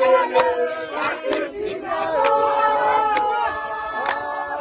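A group of people singing together, clapping their hands in time about once a second.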